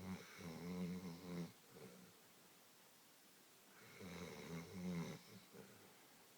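A sleeping dog snoring: two long snores, the second about four seconds after the first, with quiet breathing between them.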